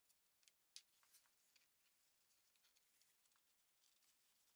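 Very faint scratchy hiss of a hand plane shaving the edge of a wooden board in uneven strokes, breaking off briefly about half a second in.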